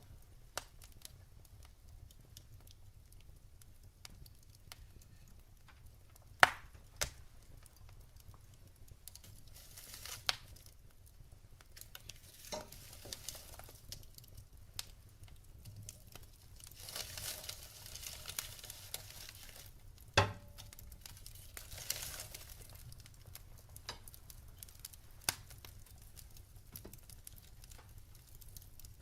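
Wood fire burning in a fireplace: scattered crackles and sharp pops, two louder pops about six and twenty seconds in, with spells of hissing from the burning logs.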